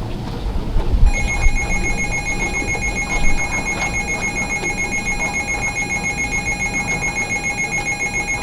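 Emergency Alert System attention tone: a harsh electronic alarm of several steady pitches pulsing rapidly. It starts about a second in and cuts off suddenly at the end, over a low rumble.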